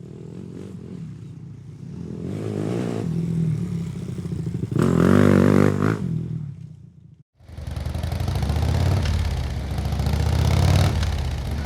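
Voge 300 Rally's single-cylinder engine running, with a brief rev about five seconds in; the sound cuts off abruptly a little after seven seconds and the engine is heard running again half a second later.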